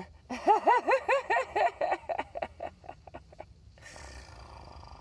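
A domestic cat chattering at a fly: a quick run of about eight short, pitched chirps in two seconds, trailing off into softer clicks.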